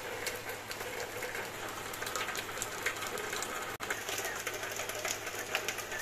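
Rain falling and dripping on leaves at night, a dense patter of small drops over a steady low hum, with a brief dropout about four seconds in.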